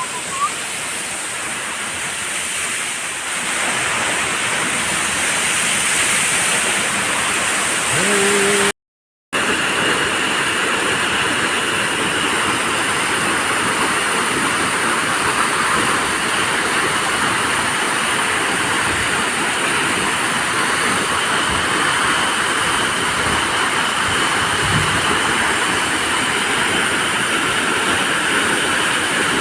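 Waterfall: a steady, loud rush of falling water. The sound drops out for about half a second around nine seconds in.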